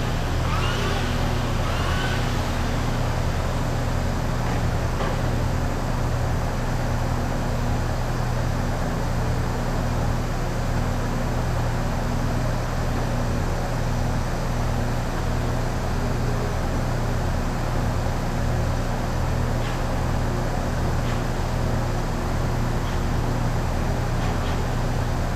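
Steady low mechanical drone with a constant hum, running evenly throughout, with a few faint ticks.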